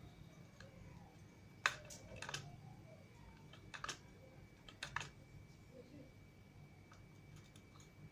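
A few sharp clicks and taps in small clusters, about two seconds in, near four seconds and near five seconds, over a faint steady high tone.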